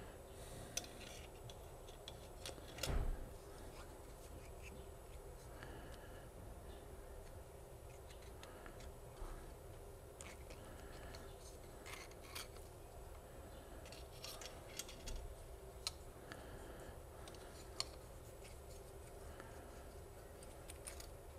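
Small metallic clicks, ticks and scrapes of piston rings being worked off a piston by hand, with one louder dull knock about three seconds in.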